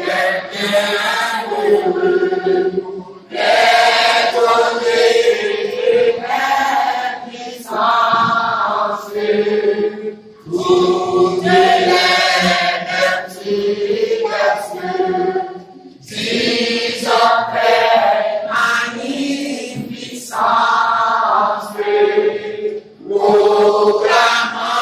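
A small choir of men and women singing a hymn together from hymnals, in phrases with short breaks between them.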